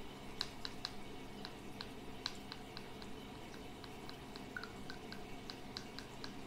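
Faint, irregular little clicks and crackles, a few a second, from the bowl of hair dye and developer as ampoule concentrate is squeezed in.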